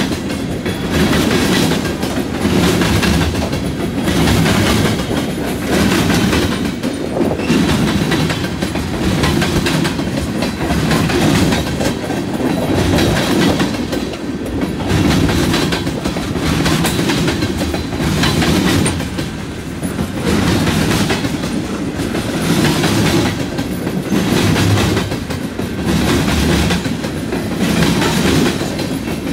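Freight cars of a slow-moving train rolling past close by: open hoppers, tank cars and empty well cars. The wheels click and clatter over the track in a regular beat about every second and a half.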